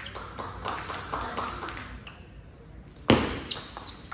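Celluloid-type table tennis ball striking rackets and the table: light ticks in the first two seconds, then one loud sharp hit about three seconds in and quick ringing clicks of a rally starting.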